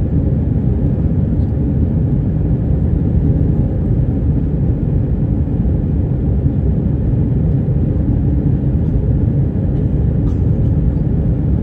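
Steady, loud low-pitched noise inside an Airbus A320's passenger cabin, from the jet engines and airflow, with no change through the stretch.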